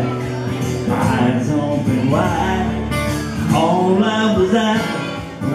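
Live song: a man singing to his own strummed acoustic guitar.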